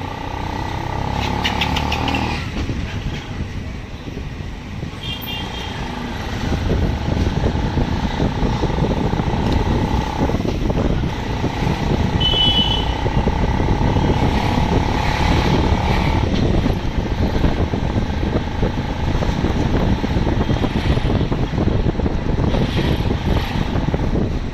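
Auto-rickshaw running through city traffic, heard from the passenger seat, growing louder about six seconds in. A steady whine runs through much of it, and a few short high beeps sound over it.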